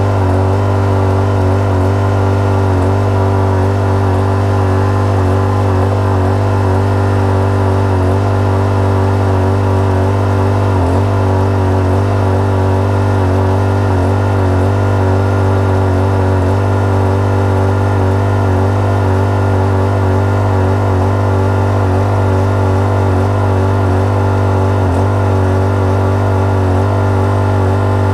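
Small gasoline engine of a Rainman watermaker running steadily at constant speed, driving the high-pressure water pump.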